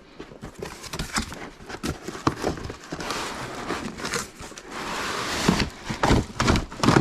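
Cardboard packaging sliding and scraping out of a box, with repeated knocks and taps of the card and packed parts, and a longer stretch of sliding scrape in the middle.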